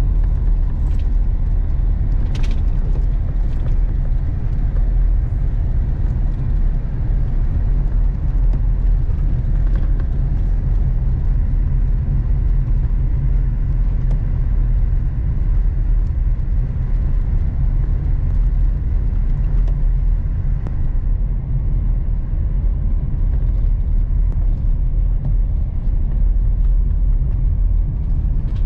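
Steady low rumble of a pickup truck driving on a snow-covered road, heard from inside the cab: engine and tyre noise. A single sharp tick about two and a half seconds in.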